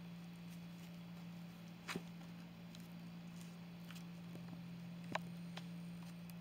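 Faint scratches and rustles of a cat's paws and body against a cardboard carton as it rolls about, with two louder sharp rustles about two seconds in and about five seconds in, over a steady low hum.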